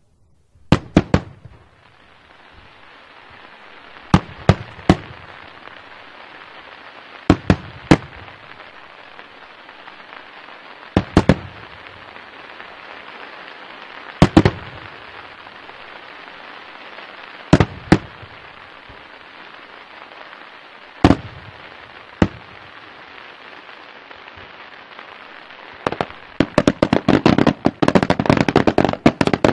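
Daytime aerial fireworks bursting in sharp bangs, in clusters of two or three about every three to four seconds over a steady hiss. Near the end comes a rapid, dense string of bangs and crackles.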